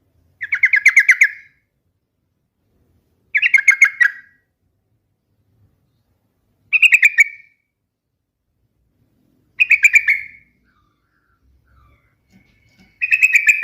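Yellow-vented bulbul (trucukan) singing: short phrases of rapid bubbly notes, each about a second long, repeated about every three seconds, five phrases in all, the last starting near the end.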